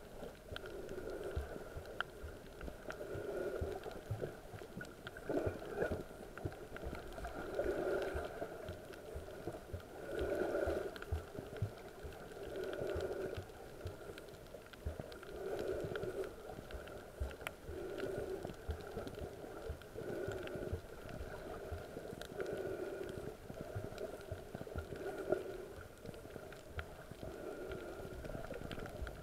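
Underwater recording of a snorkeler swimming: muffled, rhythmic whooshing swells about every two and a half seconds, over a steady faint crackle of clicks in the water.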